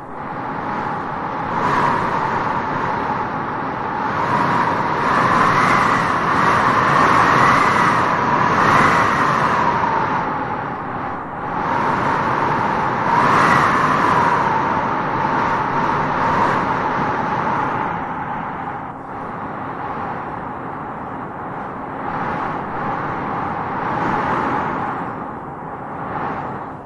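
Strong wind blowing in gusts: a continuous rushing noise with a howling whistle that swells and wavers up and down in pitch, strongest around a third of the way in and again near the middle.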